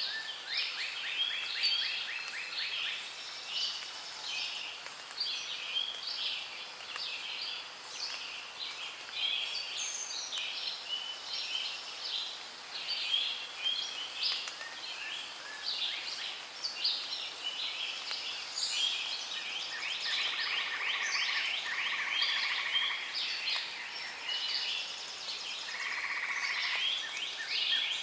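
A dense chorus of many small birds chirping and trilling over each other without pause, with a steadier buzzing trill standing out twice in the later part.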